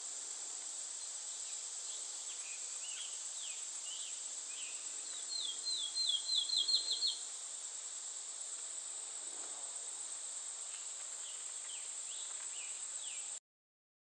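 A steady, high-pitched chorus of insects, with short bird calls scattered over it. About five seconds in, a songbird sings a quick run of about ten down-slurred notes that speed up as they go; the sound cuts off suddenly near the end.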